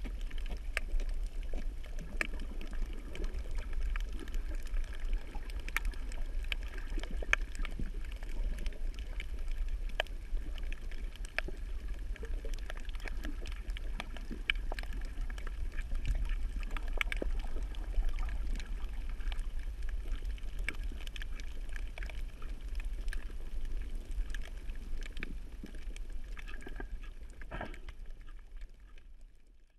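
Underwater ambience from a camera submerged over a coral reef: a steady low rumble with scattered sharp clicks, fading out over the last few seconds.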